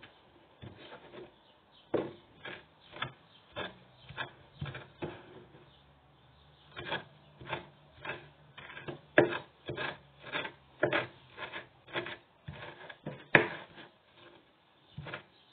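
Kitchen knife chopping fresh parsley on a wooden cutting board: a run of irregular blade strikes on the wood, about two a second, with a short pause a little before the middle.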